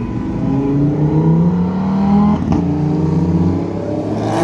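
A car engine accelerating, its pitch climbing steadily for about two seconds. A short break and drop in pitch about halfway through is followed by a second climb. Right at the end a louder rush rises in as another car passes close.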